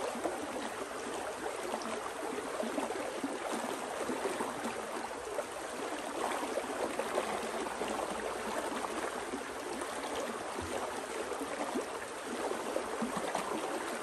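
Creek water running steadily, an even rushing hiss with no breaks.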